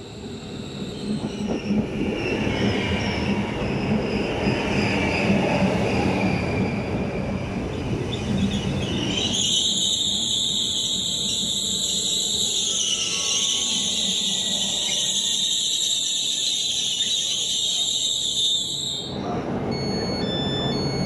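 Rock double-deck electric train rolling into a station platform with a rising rumble of wheels, then a loud high-pitched brake squeal about nine seconds in that holds for about ten seconds, sagging slightly in pitch, as the train comes to a stop. Near the end a series of short electronic beeps sounds as the doors open.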